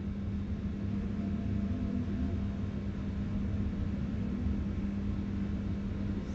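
A steady low mechanical hum with a rumble underneath.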